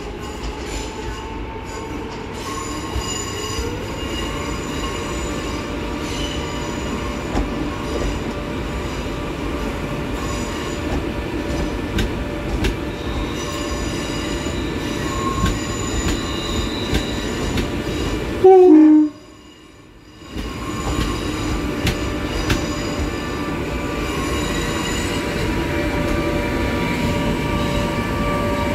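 Class 87 electric locomotive running, the steady hum of its equipment with a tone rising about four seconds in as it gets ready and pulls away. About two-thirds of the way through, a short, loud horn blast, after which the sound briefly cuts out.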